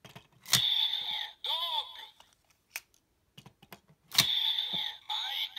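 Bandai DX Build Driver toy belt: two Full Bottles snap into its slots about three and a half seconds apart. Each click sets off the belt's electronic voice and sound effects announcing the inserted bottle.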